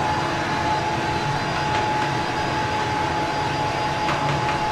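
Hair dryer and a warm-air fan heater blowing together: a steady rush of air with a constant high motor whine, drying a wet double-coated dog's fur.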